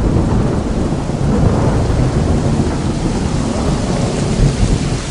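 Thunderstorm sound effect: steady heavy rain with low rolling thunder.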